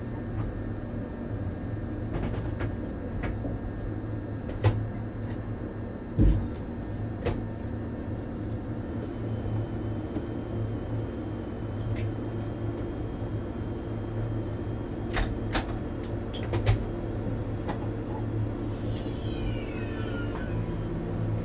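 Steady low hum of an electric train's cab equipment as the train stands at a platform, with scattered clicks and knocks; a heavier thump comes about six seconds in and a cluster of clicks a few seconds before the end.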